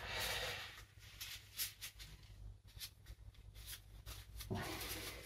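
Faint scraping and light irregular taps of a small palette knife working oil paint on a palette.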